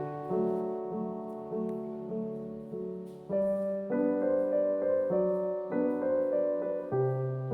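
Background music: soft piano chords changing every second or so.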